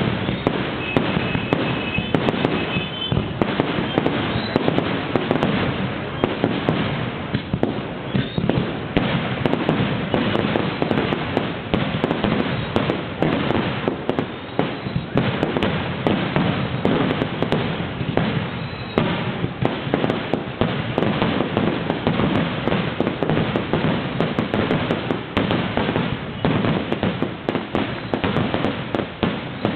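Fireworks going off in a dense, unbroken barrage, bangs following one another so closely that they merge into a continuous crackling rumble.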